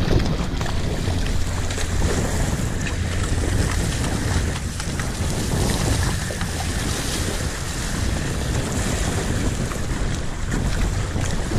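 Wind buffeting the microphone, with water rushing and splashing along a surfski's hull and from paddle strokes through choppy lake water.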